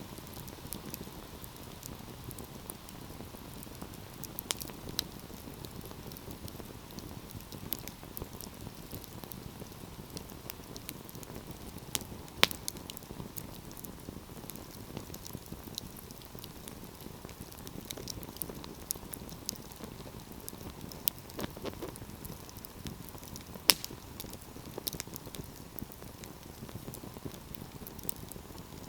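Wood fire burning in a fireplace: a steady low hiss of flames with scattered sharp crackles and pops, two louder pops about twelve and twenty-four seconds in.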